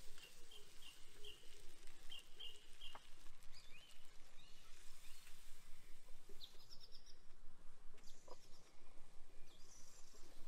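Small birds chirping in short runs of quick repeated notes over a steady hiss, with a couple of faint ticks.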